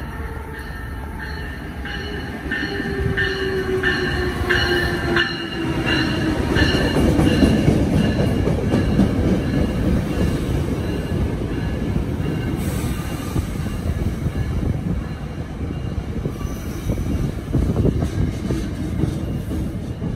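A SEPTA push-pull passenger train led by an ACS-64 electric locomotive passing at speed. For the first five seconds a tone slides down in pitch under a rhythmic high clicking. Then comes the loud, steady rumble of the coaches' wheels on the rails.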